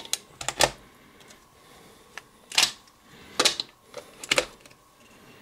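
A series of sharp plastic clicks and short scrapes as plug-in socket testers are pushed into UK three-pin wall sockets and the socket switches are clicked on. There are a few light clicks near the start, then three louder scraping clicks in the middle.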